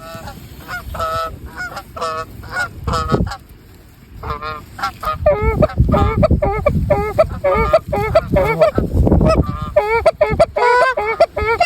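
Goose honks and clucks, many short calls in quick succession. They thin out to a lull about four seconds in, then return denser and louder.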